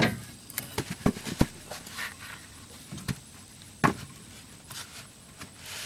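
Wooden boards and blocks being handled and shifted under a boat on a trailer: a string of sharp wooden knocks and thuds, several close together in the first second and a half and another loud one near four seconds in.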